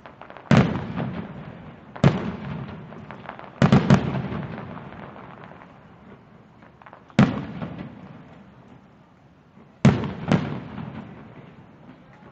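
Aerial fireworks bursting: seven sharp booms, two of them in quick pairs, each trailing off in a rolling echo.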